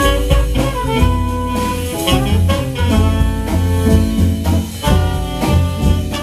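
Small jazz group playing live: a trumpet carries a melodic line over upright bass, drum kit and electric guitar.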